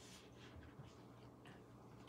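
Near silence: a few faint soft ticks and scuffs over a low steady hum.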